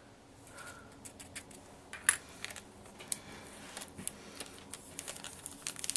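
Small plastic spoon clicking and scraping against the jar and a little plastic pot as powdered gum arabic is scooped out and tipped in. Faint, scattered light taps, the sharpest about two seconds in.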